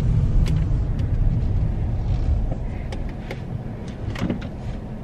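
Low rumble of a car's engine and road noise heard from inside the cabin, easing off after about two and a half seconds, with a few sharp clicks.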